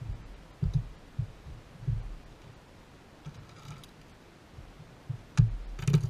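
Dull, irregular thumps of footsteps and knocks on a carpeted bass boat deck, about half a dozen, with a short clicking rattle near the end.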